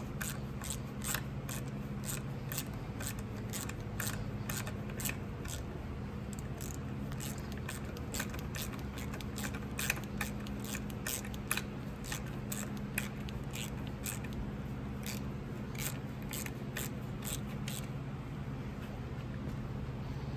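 Socket ratchet on a long extension clicking in irregular runs, about two or three clicks a second, as the 14 mm tiller-handle mounting bolts are run in and tightened. A steady low hum sits underneath.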